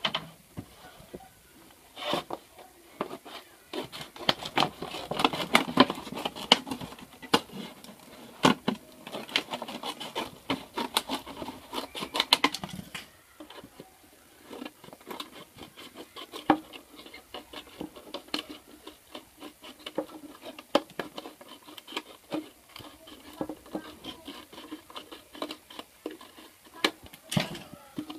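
Thin plastic water bottle crackling and crinkling as it is handled and cut through with scissors: a dense run of sharp clicks and snips in the first half, then sparser crackles.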